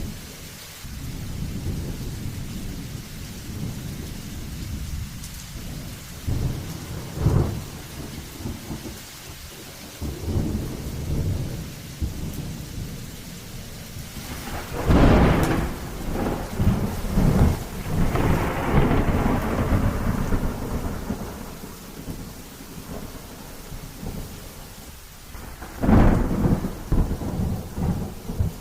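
Storm: steady rain with heavy low rumbles that swell up several times, loudest about halfway through and again near the end.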